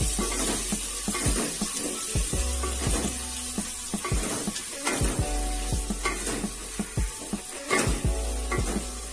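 Sliced onion sizzling in hot mustard oil in a metal pot, with a steady hiss, while a wooden spatula stirs it, scraping and knocking against the pot many times.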